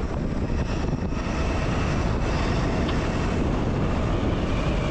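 Zero FX electric motorcycle riding off-road: heavy wind rush and rumble on the microphone over a faint, steady electric-motor whine.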